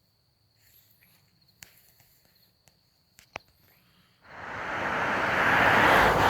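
Quiet outdoor ambience with a faint, steady high insect drone and a couple of small clicks. About four seconds in, a loud rushing noise starts abruptly and stays.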